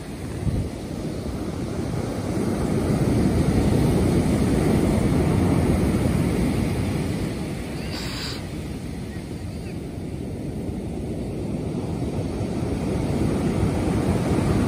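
Sea waves breaking on a pebble beach: a steady rushing surf that swells, eases about eight seconds in, then builds again, with wind rumbling on the microphone.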